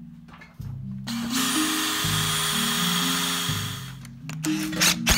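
Cordless drill running steadily for about three seconds, drilling into the corner of a PVCu sash window frame, with a couple of short bursts near the end. Marimba-style background music plays throughout.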